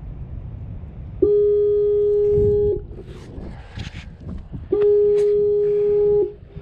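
Fog signal on a navigation-marker tower sounding two long, steady, low-pitched blasts of about a second and a half each, about three and a half seconds apart, over a low rumble.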